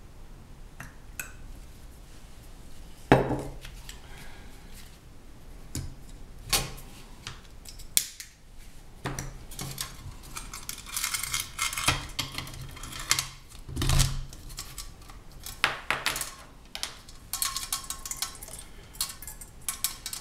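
Handling clatter of a cut-open tomato-can windscreen and small brass white-gas stove: several sharp knocks and metallic clinks, with runs of rattling around the middle and near the end.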